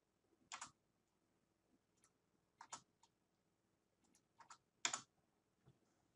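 Faint clicks of computer keys and a mouse: about four short double clicks spread over the seconds, the loudest about five seconds in, with a few fainter ticks between.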